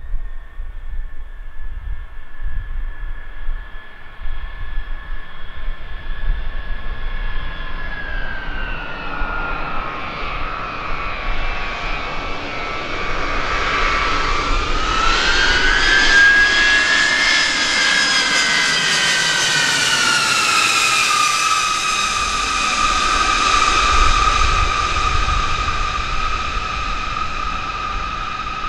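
Lockheed C-5 Galaxy's four turbofan engines whining as the jet comes in low and passes overhead. The high jet whine sinks in pitch, climbs again as the aircraft draws close, then falls and levels off as it goes past, loudest a little after the middle.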